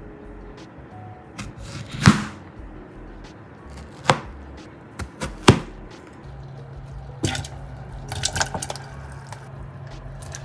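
Kitchen knife cutting peaches on a cutting board: a handful of separate sharp knocks, the loudest about two seconds in and a quick cluster near the end, over soft background music.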